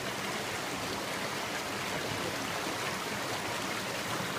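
Steady rush of a small rocky creek, water tumbling over boulders in small cascades and riffles.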